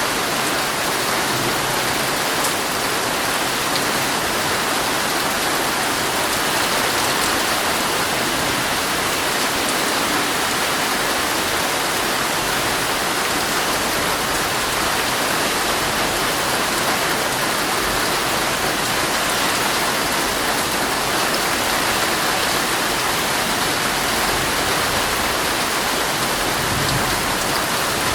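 Heavy rain falling steadily on a tent, an even unbroken patter.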